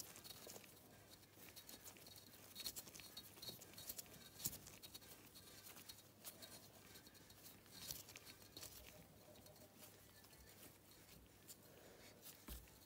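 Faint, scattered light clicks and scrapes of a steel bolt being screwed by gloved hand into a rocker-arm pin in the aluminium cylinder head of a JS171FFM engine, to draw the pin out.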